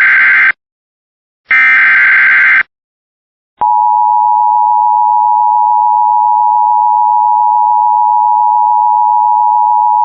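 Emergency Alert System SAME header data bursts on a NOAA Weather Radio broadcast: two dense digital bursts about a second long, a second apart. About three and a half seconds in, the single steady weather-radio alert tone near 1 kHz starts and holds, announcing a new warning.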